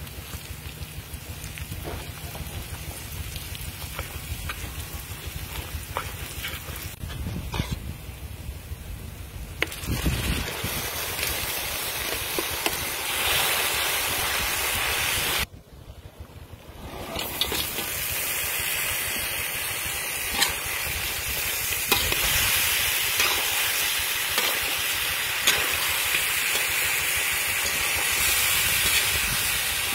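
Chili, garlic and shrimp-paste mix frying in a large metal wok, stirred with a metal ladle that clicks and scrapes against the pan. The sizzle is faint at first, becomes loud and steady about ten seconds in, drops out briefly near the middle, then continues as crabs are tossed in the wok.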